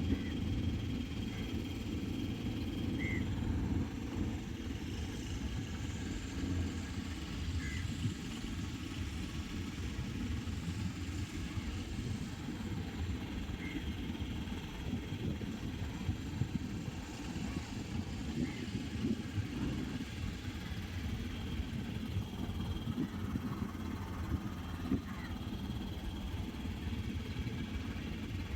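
Motorboat engine running steadily with a low rumble, with a few short, faint high chirps every several seconds.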